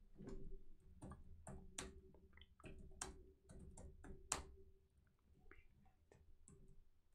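Faint, irregular clicks of a computer keyboard and mouse as a short web search is typed, over near silence.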